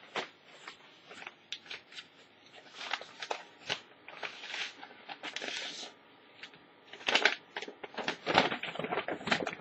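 A padded mailing envelope being opened and handled: irregular paper rustling and crinkling in several bursts, loudest near the end.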